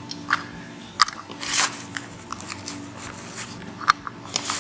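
Hammer knocking at the axle cap on a lawn tractor's front wheel to pop it off: several sharp, irregularly spaced knocks with a short scrape between them.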